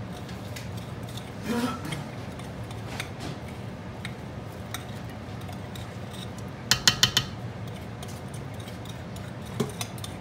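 Sharp kitchen clinks of glass and metal from a glass jar being emptied over a steel pot: a quick run of four or five taps about two-thirds of the way through and a single tap near the end, over a low steady background hum.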